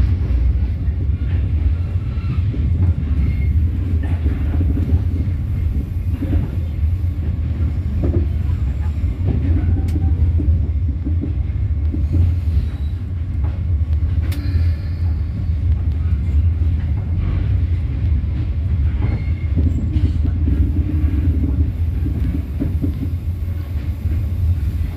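Passenger train running along the track: a steady low rumble, with a few sharp clicks here and there.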